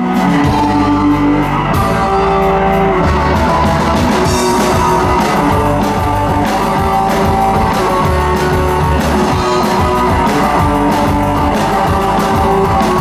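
Live rock band playing an instrumental intro: electric guitars over a drum kit, loud and steady.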